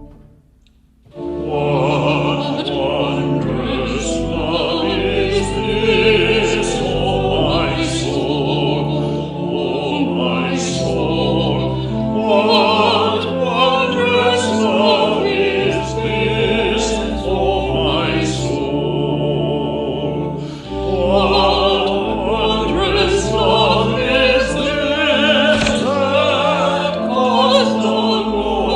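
Vocal music: voices singing with vibrato over sustained chords. It starts about a second in, after a brief pause.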